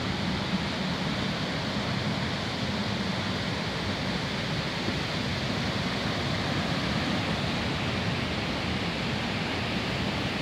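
Steady rush of a fast-flowing stream or small waterfall, an even unbroken hiss.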